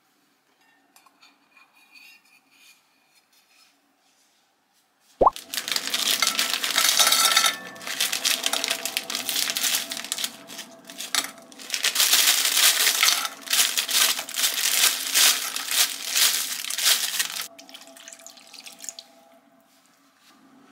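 Food frying in a pan: shrimp tipped into a frying pan crackle and sizzle loudly, starting suddenly about five seconds in and dying down to a quieter level near the end.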